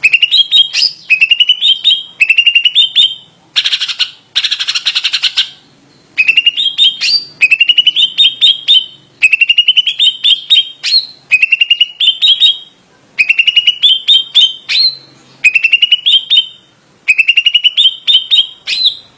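Green leafbird (cucak ijo) singing loudly in repeated phrases of quick whistled notes that climb in pitch, about one phrase a second. About four seconds in, it gives a harsh buzzy chatter.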